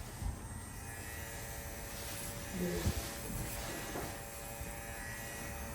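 Electric hair clipper running with a steady buzz during a haircut.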